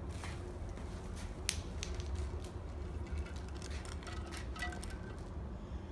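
Handling sounds from an electrical cord being fed through the top section of a garden fountain and the section being tipped over: scattered light clicks and scrapes, the sharpest about one and a half seconds in, over a steady low hum.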